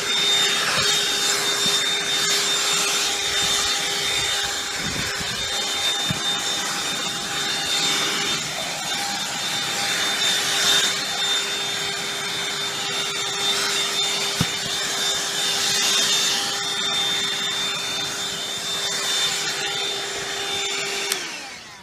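BLACK+DECKER cordless handheld vacuum running steadily, a motor whine over rushing air, as it sucks up stink bugs along with leaves, grass and dirt. The motor winds down near the end.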